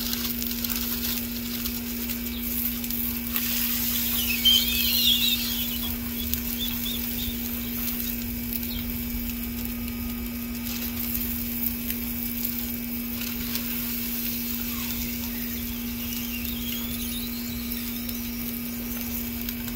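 Sausage patties sizzling on a hot Blackstone flat-top griddle as they are pressed flat under parchment paper, with a wavering high screech about four seconds in and a fainter one near the end.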